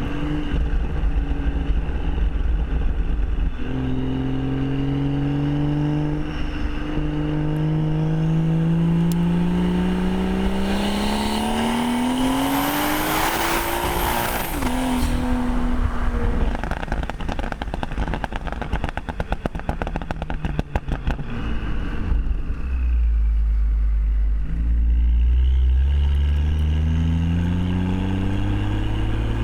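Modified BMW M140i's B58 3.0-litre turbocharged inline-six, with resonator delete and sports cat, pulling hard with the revs rising steadily to a peak about 14 seconds in. It then lifts off, and the exhaust crackles and pops on the overrun from its popcorn tune before the engine pulls again near the end.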